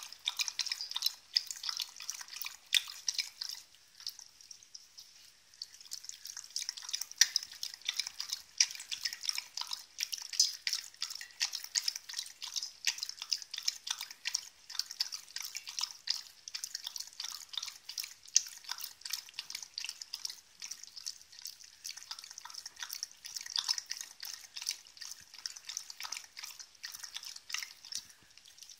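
A dog lapping water from a glass bowl: a continuous stream of quick, irregular wet clicks and splashes.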